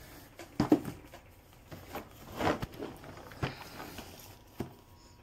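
Cardboard jigsaw puzzle boxes being handled and shifted against each other, giving a few light, irregular knocks and scrapes. The sharpest knock comes a little under a second in.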